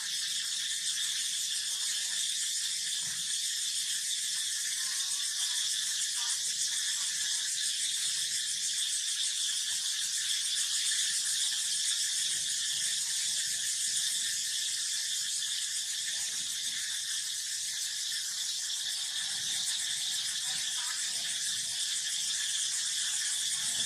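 Steady, high-pitched insect drone, several buzzing pitches layered together at an even level.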